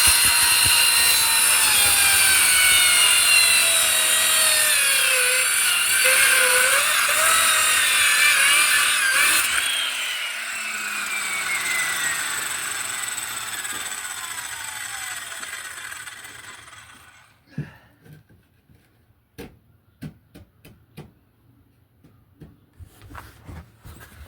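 Electric power saw cutting through wood for about ten seconds, its motor pitch sagging under the load, then released and winding down with a long falling whine. A few scattered light knocks and clicks follow near the end.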